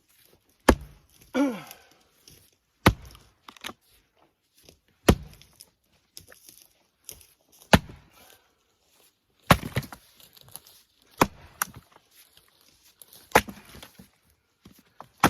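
Splitting axe striking firewood rounds: about eight sharp chopping blows, roughly one every two seconds, as the wood is split by hand.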